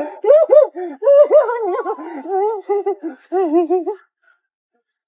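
High-pitched laughter in a run of bursts with a wavering pitch, ending in a quick string of 'ha-ha-ha' pulses that stops about four seconds in.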